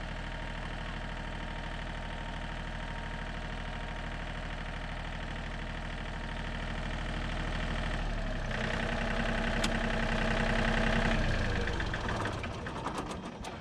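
John Deere tractor engine running at idle, then its note rises and runs louder for about three seconds past the middle before settling back down.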